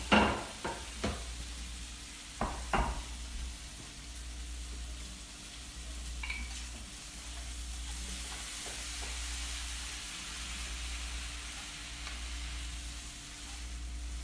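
Squid stir-fry sizzling in a frying pan as it is stirred with chopsticks, with a steady hiss. A few sharp knocks of chopsticks or pan come in the first three seconds, the first the loudest.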